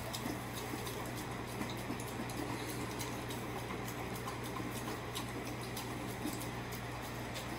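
Puppy eating raw minced meat from a stainless steel bowl: wet chewing, lapping and smacking in a run of small irregular clicks.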